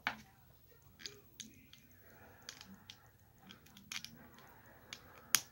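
Plastic Lego bricks clicking and clacking as they are handled and pressed together: a string of sharp, irregular clicks, the loudest one near the end.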